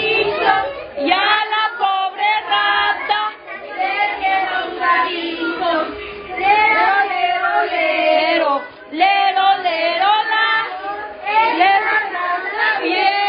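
Women teachers and young children singing a song together as a group.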